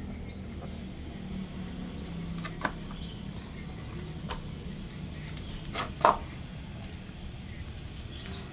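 High, short rising chirps repeating every half second or so over a steady low hum, with a few sharp clicks, the loudest about six seconds in.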